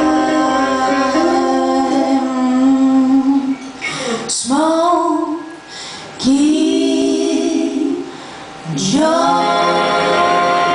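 Female vocal trio singing in close three-part harmony, holding long chords with short breaks between phrases, over a soft guitar accompaniment.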